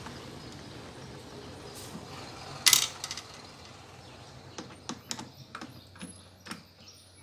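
Metal clinks from an 8 mm wrench and screws as the drain valve's mounting screws are undone: one sharp clink about two and a half seconds in, then a run of light, irregular clicks.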